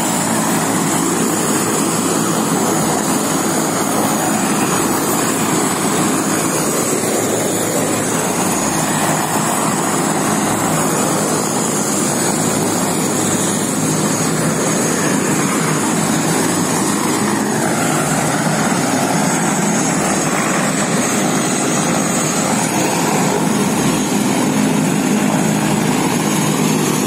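Helicopter running on the ground with its rotor turning: a steady, loud rotor and engine noise with a thin high turbine whine over it.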